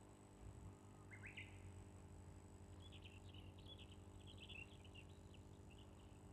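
Near silence: faint, scattered bird chirps in the background over a low steady hum.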